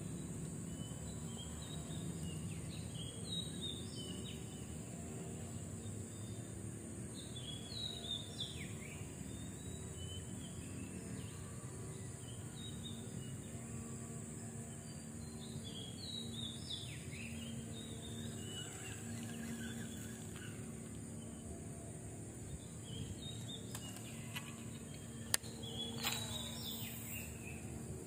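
Small birds chirping with short, scattered calls over a steady low wind rumble and an even high hiss. A few sharp clicks come near the end.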